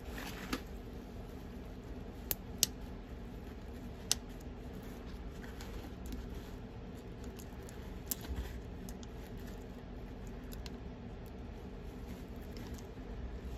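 A few small, sharp clicks and scrapes of a paper clip picking at the metal set screw in the Delrin body of a drysuit P-valve, working it loose, over a steady low hum.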